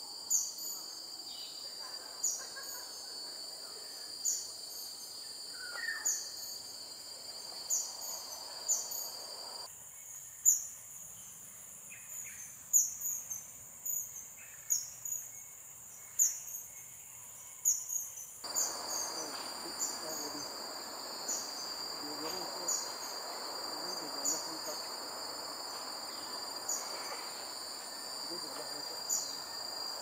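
Blue-eared kingfisher calling: short, loud, high-pitched falling notes, repeated every one to two seconds and sometimes in quick pairs, over a steady high insect drone.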